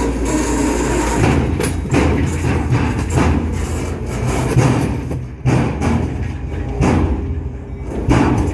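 Loaded freight train flatcars rolling past close by: a steady rumble of steel wheels on rail, with heavy clunks and thumps every second or so as the wheels cross rail joints.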